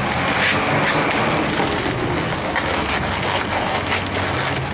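Long latex 350 modelling balloon rubbing and squeaking under the hands as it is twisted into segments, over a steady background hiss.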